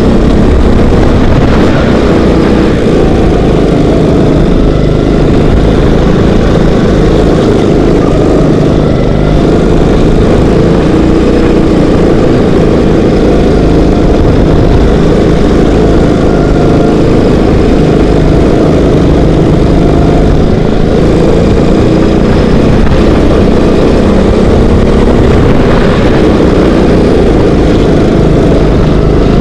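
Kart engine running loud and steady at racing speed, heard from on board the kart as it laps the track.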